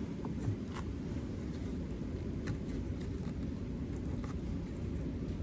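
Gusty wind rumbling steadily on the microphone, with a few faint clicks from handling the hive frames.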